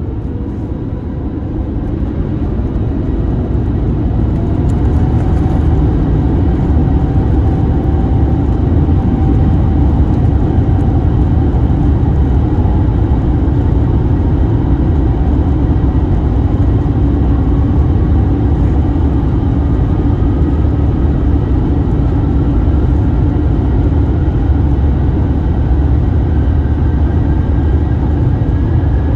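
Airbus A350-900's Rolls-Royce Trent XWB engines at takeoff thrust, heard inside the cabin: a loud low rumble that builds over the first few seconds and then holds steady, with a whine that rises slowly in pitch.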